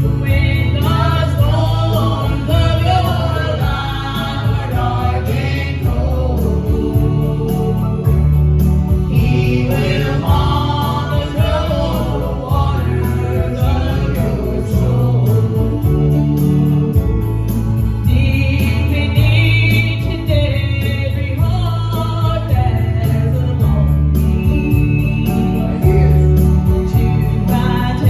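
Gospel vocal group singing a gospel song together with instrumental accompaniment.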